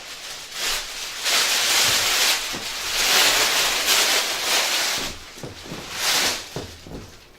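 Packaging rustling and scraping loudly in several swells while the vacuum is handled, with a few light knocks near the end.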